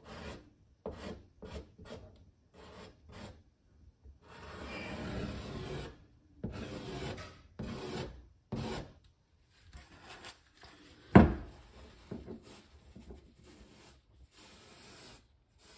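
Putty knife scraping Bondo body filler across a wooden cabinet bottom in a run of irregular strokes, a few of them longer. One sharp knock comes about eleven seconds in.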